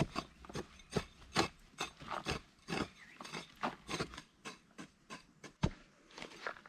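An irregular series of sharp knocks and scrapes, about two or three a second, like hand work on wood or earth.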